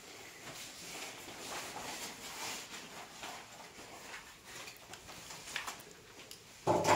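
Quiet room noise with faint rustling and soft footsteps as someone walks around a small room, and a brief louder sound right at the end.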